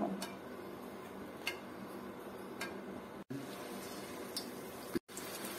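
Hot cooking oil in a frying pan, a steady faint sizzle with occasional small pops, as pakora batter is dropped in and starts frying. The sound cuts out briefly twice.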